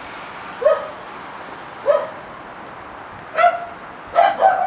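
A dog barking: five short barks spread over about four seconds, the last two in quick succession, over steady outdoor background noise.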